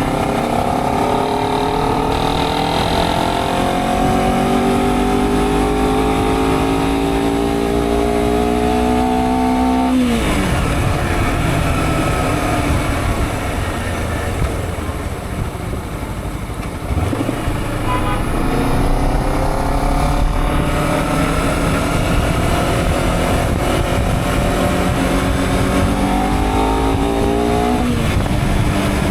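Honda CBR250RR's parallel-twin engine pulling hard through two long accelerations, its pitch climbing steadily each time. The pitch drops sharply about ten seconds in and again near the end.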